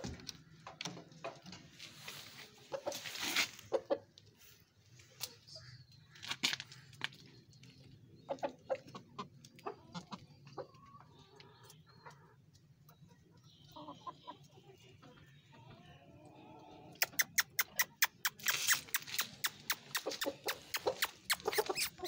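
Aseel chickens clucking, with scattered knocks and handling noises. Over the last few seconds comes a rapid run of sharp clicks, louder than the clucking.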